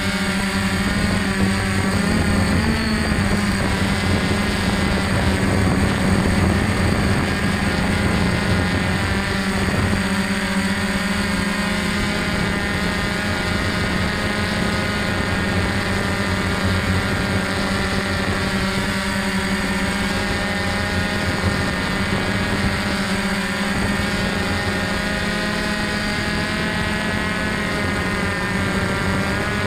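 DJI F550 hexacopter's electric motors and propellers in flight, a steady hum of several stacked motor tones heard from the camera mounted on the frame, with a small shift in pitch about two seconds in.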